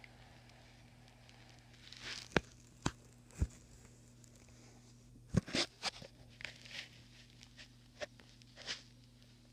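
Scattered light clicks, taps and rustles, about a dozen irregular ones with a small cluster around the middle, over a steady low electrical hum.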